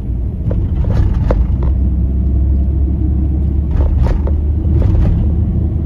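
Car driving along a town road, heard from inside the cabin: a steady low rumble of engine and tyres. A few short knocks and rattles come through over the road surface.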